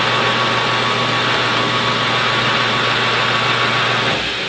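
12x36 import metal lathe running steadily with a steady hum and whine, while a 3/16-inch drill bit in the tailstock chuck drills a pilot hole through a spinning part. The sound eases a little about four seconds in.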